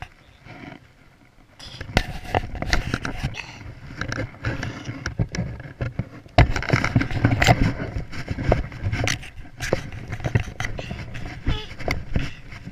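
Handling noise from a small camera in a plush Easter basket: fabric rubbing and brushing over the microphone, with many sharp knocks and bumps, heaviest in the second half.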